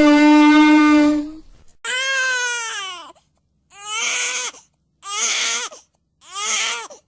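An air horn blasts one steady, loud note for about a second and a half. Then a person cries in four wailing sobs, the first long and falling in pitch, the others shorter.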